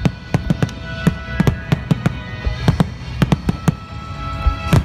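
Aerial fireworks bursting in a rapid, irregular series of sharp bangs, the loudest near the end, over music with sustained notes.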